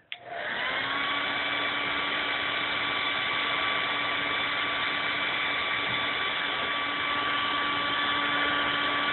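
Hand-held hair dryer switched on, quickly reaching speed and then running steadily with a constant whine over its blowing hiss.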